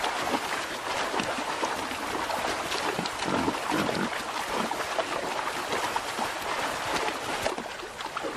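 A herd of wild boar splashing as they wade across a shallow river, many small irregular splashes over the steady rush of the water.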